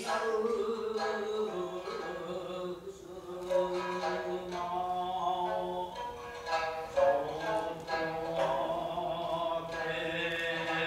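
Narrative chanting that accompanies Japanese puppet theatre: a single voice drawing out long, wavering sung lines, with a few sharp plucks of a shamisen.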